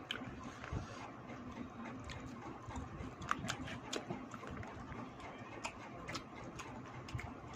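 A person eating close to the microphone: chewing with wet lip-smacking and many small irregular clicks.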